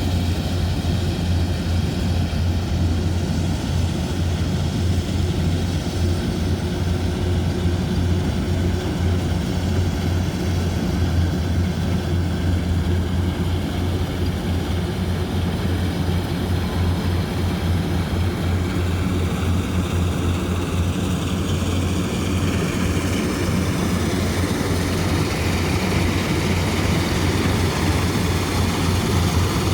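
Rice combine harvester's engine running steadily with a low, even drone. A fainter high whine from the machinery rises slightly in the last several seconds.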